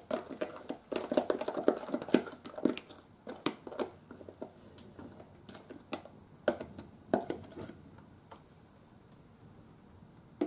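A fork scraping and tapping thick cake batter out of a plastic container into a round cake pan. A busy run of small scrapes and clicks lasts the first few seconds, then occasional taps.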